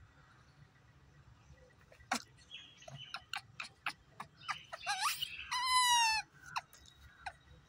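A baby rhesus macaque calling: a run of short sharp clicks, then a rising squeal about five seconds in and a clear, high, slightly falling call lasting about half a second.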